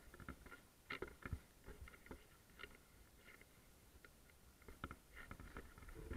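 Faint, irregular footsteps crunching and scuffing on a floor strewn with rubble, with a few sharper clicks.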